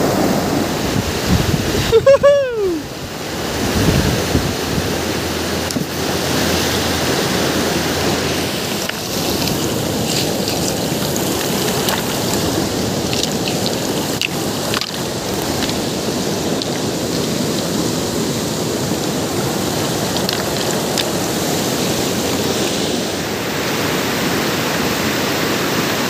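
Rushing mountain river water, a steady loud rush throughout. About two seconds in, a brief cry falls sharply in pitch.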